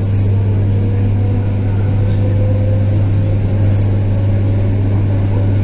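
ED9M electric multiple unit running: a steady low hum over running noise, with a faint whine that rises slowly in pitch over the first few seconds.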